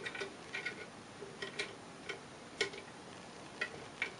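Light metallic clicks and taps at irregular intervals as the trigger pin is worked through a Tapco G2 trigger group and into an AK receiver.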